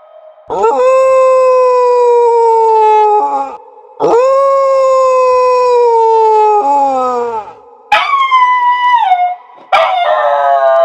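A dog howling: a string of long, drawn-out howls, each held for two to three seconds and sagging in pitch at its end. The third howl, about eight seconds in, is shorter and higher and drops down in steps.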